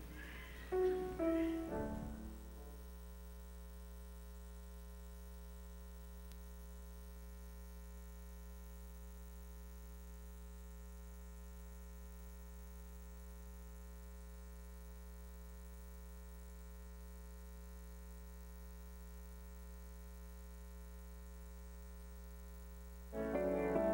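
Steady electrical mains hum with its overtones. A few descending musical notes fade out about two seconds in, and music begins near the end.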